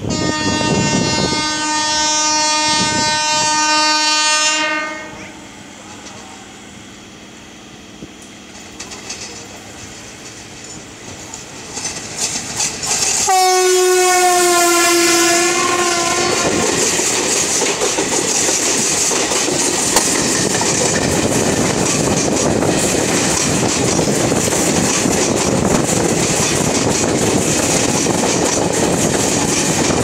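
Indian Railways WAP4E electric locomotive horn: one long steady blast of about five seconds, then a second blast about 13 seconds in whose pitch falls as the locomotive passes. The express's coaches then run by with a steady rushing clatter of wheels on rail joints.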